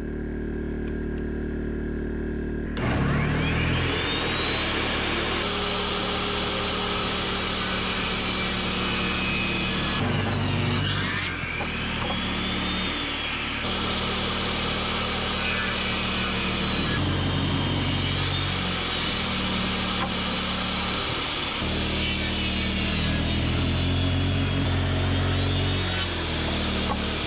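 Ridgid portable table saw switched on about three seconds in and running while ripping a long board. Its high whine sags and recovers several times as the blade takes the wood. A steady low hum runs underneath throughout.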